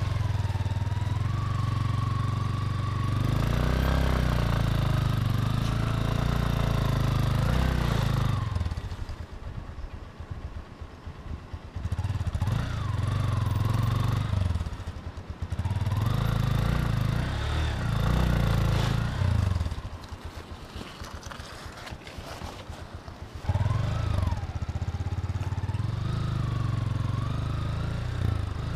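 Yamaha Lander 250 single-cylinder motorcycle engine revving hard in repeated bursts as the bike tries to climb a wet rock slab, dropping back twice before revving up again; the rear tyre slips on the wet stone.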